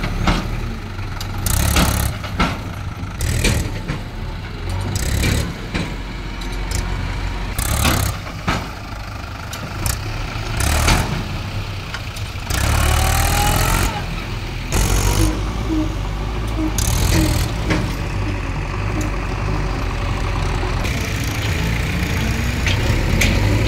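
Mahindra 575 DI tractor's diesel engine running steadily with its hydraulic trolley tipped up, with irregular knocks and clatters through most of the first part and a short rising whine about 13 seconds in.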